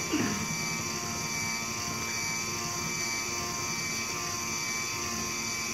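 A small electric motor whirring steadily: an even hum made of several fixed tones over a light hiss, with no change in speed.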